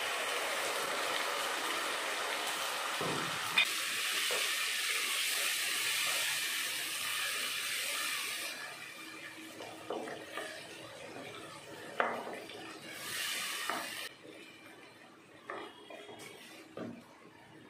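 Tomato puree hitting hot oil and sautéed onions in a pan, sizzling with a steady hiss that dies down after about eight seconds. A wooden spatula then stirs the mixture, with a few soft knocks and scrapes against the pan.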